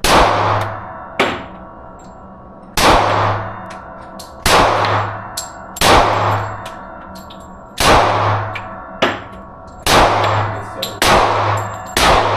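Gunshots at a shooting range, about ten of them one to two seconds apart, each followed by a ringing echo.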